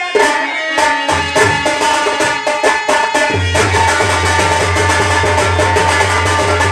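Lively folk instrumental music with fast, dense hand-drum strokes over a sustained melodic line; a deep steady bass note comes in about three seconds in.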